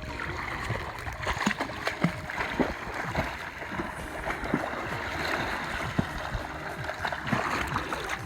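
Sea water splashing and sloshing close to the microphone in a dense, irregular wash.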